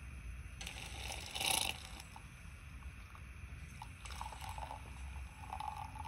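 Espresso being released under steam pressure from a Bellman CX25-P stovetop espresso maker into a mug: a loud hissing, spitting spurt about a second in, then quieter sputters and gurgles as the coffee flows, over a low steady rumble.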